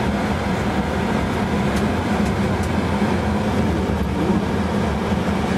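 Tour coach engine and road noise heard from inside the cabin: a steady, unbroken low drone.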